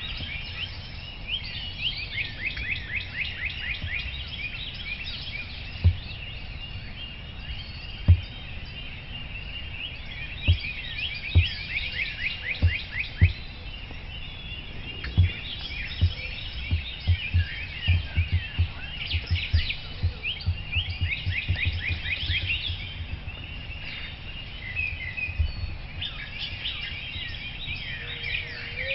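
Songbirds chirping and trilling in a morning chorus, many quick falling notes repeated in runs. Irregular low thumps come through the middle of it, a few of them louder than the birds.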